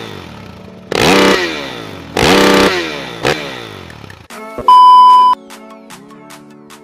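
Intro sound effects over music: two engine revs, each rising sharply in pitch and then falling away, followed a little after halfway by a loud steady electronic beep lasting about half a second.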